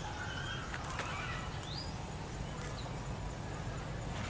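A bird calling in short level notes and a few rising notes, with a few light clicks from hands handling the rattan snares and bamboo sticks of a chicken trap, over a low steady rumble.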